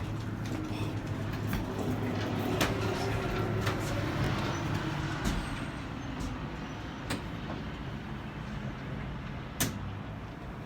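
Scattered clicks and knocks of an enclosed cargo trailer's roof vent being turned and pushed while it refuses to open, over a steady low hum.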